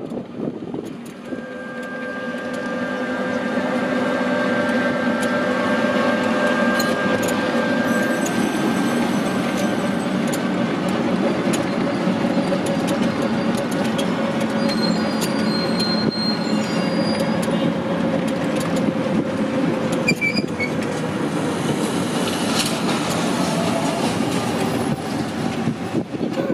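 Small three-wheeled taxi driving, heard from inside its cabin: a steady whine from its drivetrain that builds over the first few seconds, over road noise and light rattles of the cabin. The whine fades in the last few seconds.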